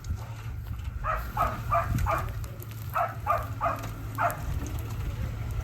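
A dog barking in quick runs of four or five barks, about three a second, over the low steady hum of an idling engine.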